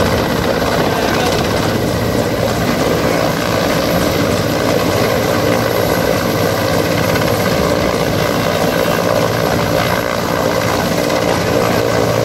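Rescue helicopter hovering overhead, its rotor and engine running loudly and steadily.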